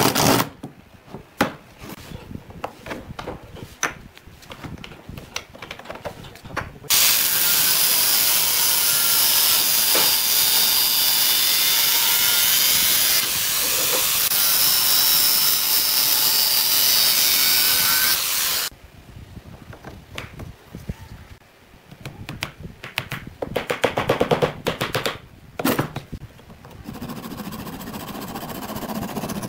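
A cordless drill stops just as the sound begins, and loose clicks and knocks of tools and wood follow. About seven seconds in, an angle grinder with a cutting disc starts up and runs steadily for about twelve seconds, then cuts off. After it come scattered knocks and a short run of quick hand-saw strokes on wood.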